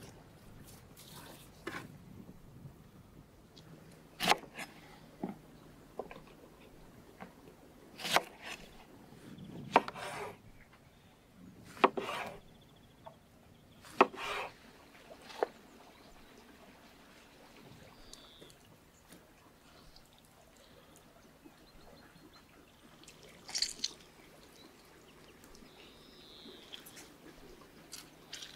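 Kitchen knife slicing through oranges onto a wooden cutting board: a string of sharp knocks of the blade on the wood, several in the first half and one more near the end, with quieter wet rubbing and dripping between them.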